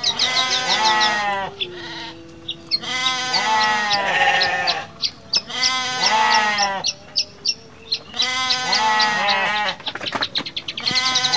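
Sheep bleating: about four long, wavering bleats, roughly one every three seconds, with short high chirps in the gaps between them.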